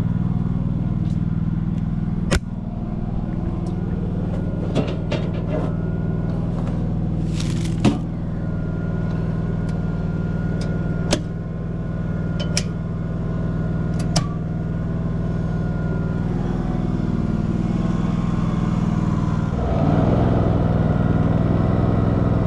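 DuroMax XP16000iH inverter generator running steadily on propane at full speed, low idle off. Over it come a series of sharp clicks, about six in the first fourteen seconds, as breakers and the generator interlock are thrown on the house's meter and breaker panel.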